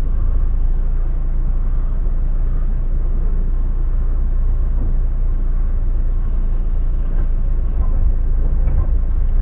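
Off-road vehicle's engine idling, a steady low rumble heard from inside the cab.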